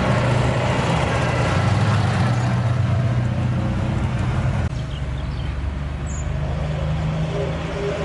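Car engine running steadily at low speed. A bit over halfway the higher noise drops off suddenly while the engine note carries on.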